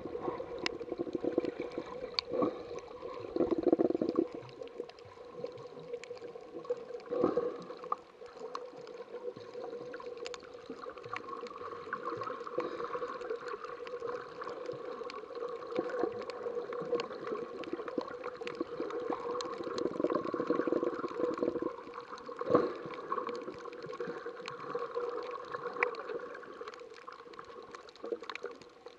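Water sloshing and gurgling, heard underwater through an action camera's waterproof case, with a steady hum underneath and many sharp scattered clicks and crackles. The water noise swells and fades.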